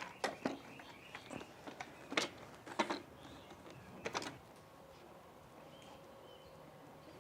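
A series of light, sharp clicks and knocks, about a dozen over the first four and a half seconds, then faint short high chirps.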